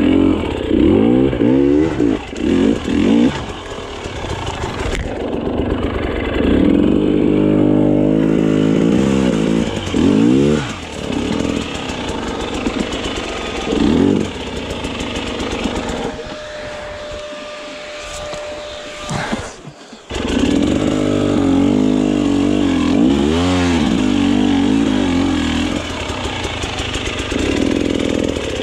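KTM 300 XC-W's 300 cc two-stroke single revving in repeated bursts on a steep, rocky climb, the pitch rising and falling with the throttle. A little past halfway it drops to a low, steady run for a few seconds, then revs up again.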